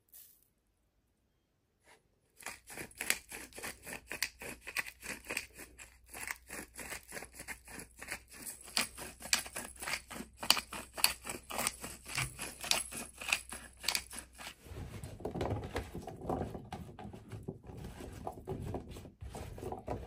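Hand-twisted seasoning mill grinding, seasoning the raw vegetables before roasting: a fast run of crunching clicks that starts about two seconds in and turns lower and fuller near the end.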